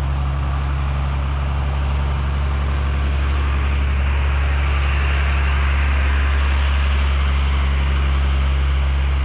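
Diesel engine of a semi-truck hauling a tanker trailer, labouring slowly up a steep climb close alongside, with a steady low drone and road noise that swells a little in the middle.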